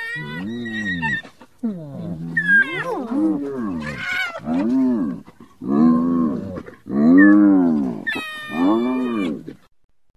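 Spotted hyena calling: a run of about seven low pitched calls, each rising and then falling in pitch. The loudest comes near the middle, and a higher, sharper call closes the series.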